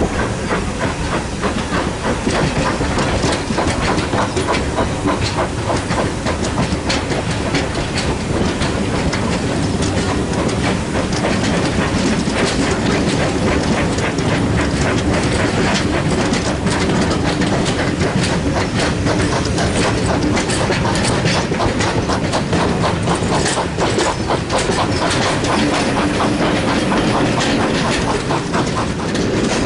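Train running along the track: a steady rumble with the wheels clicking over the rail joints.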